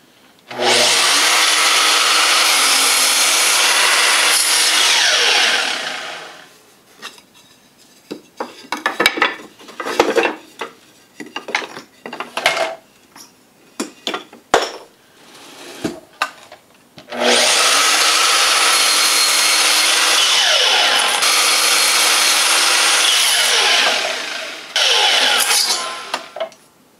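Makita sliding mitre saw run twice, each time for about six seconds, cutting an initial 45-degree mitre through a wooden picture-frame blank and then winding down. Between the two cuts there are knocks and clatter as the boards are handled and repositioned.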